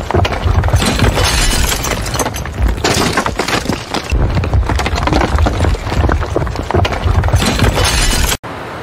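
Building-collapse sound effect: a continuous low rumble under repeated crashing and shattering of breaking concrete debris. It breaks off abruptly near the end.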